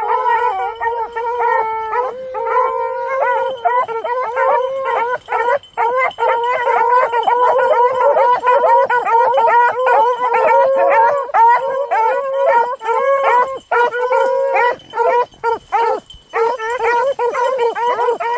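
A pack of beagles baying, several voices overlapping almost without pause as the hounds run a rabbit's scent trail.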